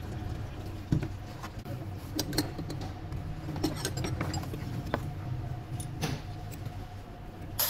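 Scattered light clicks and clinks from plastic intake parts being handled and lifted out of the engine bay, over a steady low hum.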